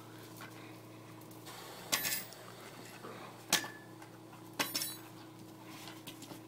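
Three short bursts of sharp clacks and clinks, some ringing briefly, as a blue-and-gold macaw bites and shoves a push broom's handle, knocking it against concrete.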